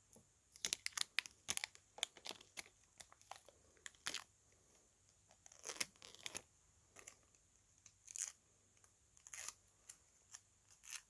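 Adhesive tape being peeled and torn by hand: a run of irregular crackling rips and snaps, with a few longer drawn-out peels about six seconds in and again near the end.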